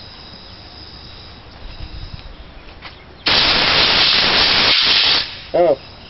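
Compressed-air blow gun blasting into a dust-packed pleated vacuum cleaner filter to clear it: one loud hiss of about two seconds, starting suddenly about three seconds in and cutting off sharply.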